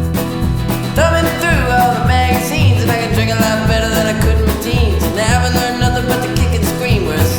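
Background music: an upbeat country-style song with a sung vocal over guitar and a steady bass beat.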